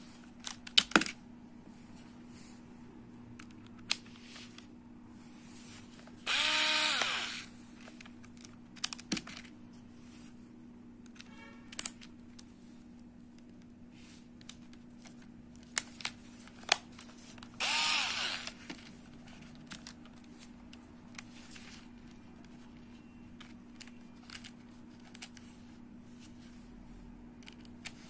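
A Tonfon cordless electric screwdriver's motor runs briefly twice, each a whirr of about a second that rises and falls in pitch. Between the runs come scattered clicks and taps as bits are handled and fitted into the chuck, over a steady low hum.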